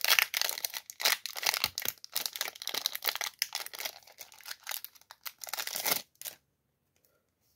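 Foil Yu-Gi-Oh booster pack wrapper being torn open and crumpled by hand: a dense crinkling crackle that stops about six seconds in.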